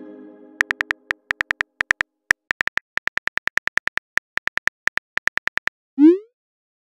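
Texting-app sound effects: a synth chime fading out, then quick keyboard-typing clicks in uneven runs, about six a second for some five seconds. Near the end comes a short rising swoop, the message-sent sound.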